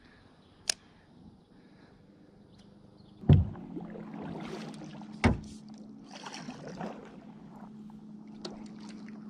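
Two loud knocks on a fishing kayak's hull about two seconds apart, with a swishing noise after them, and a sharp click near the start. A steady low hum sets in just after the first knock.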